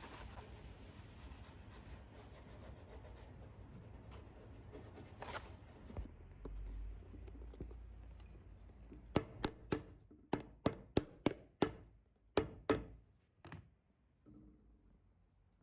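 Soft rubbing and handling noise, then about a dozen sharp, quick taps of a hand tool on the boot, irregularly spaced, each with a short ring.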